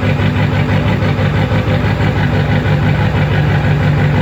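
2002 Ford F-350's 7.3 L Power Stroke V8 turbo-diesel idling steadily with an even rapid pulse, just after a cold start that was hard because of a bad glow plug relay.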